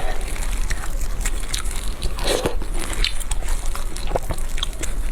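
Close-up biting and chewing of food, with crunchy, crackly clicks, typical of eating chicken on the bone.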